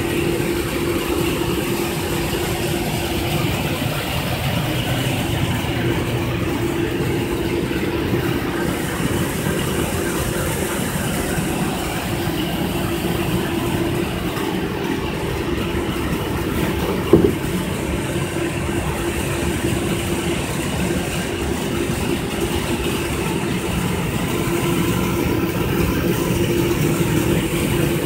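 PAT 10 seed-cleaning machine running steadily as field peas pass through its hopper and sieves: an even mechanical hum with a constant tone over a rushing noise. There is one short sharp knock a little past halfway.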